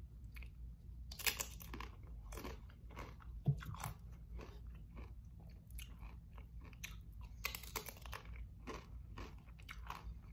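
Tortilla chips being bitten and chewed close to the microphone: irregular crisp crunches, the loudest bites about one and three and a half seconds in, over a steady low hum.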